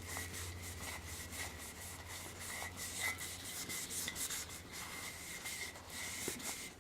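Scrubbing the burnt surface of a frying pan: a continuous run of rough rubbing strokes as the burnt residue is worked off.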